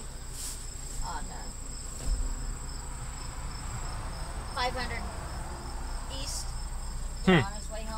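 Insects chirring steadily, a continuous high buzz with an evenly pulsing chirp beneath it. About seven seconds in, a short, sharp squeak falls quickly in pitch; it is the loudest sound.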